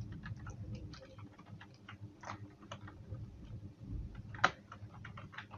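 Computer keyboard typing: faint key clicks at an irregular pace, with one louder keystroke about four and a half seconds in.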